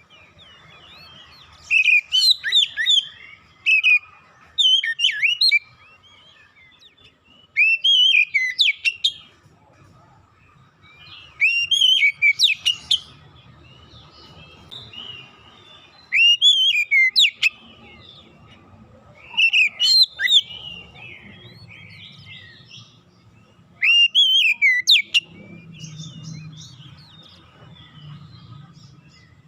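Oriental magpie-robin singing: loud phrases of clear whistled notes that swoop quickly up and down, coming in short bursts every three to four seconds, about eight times.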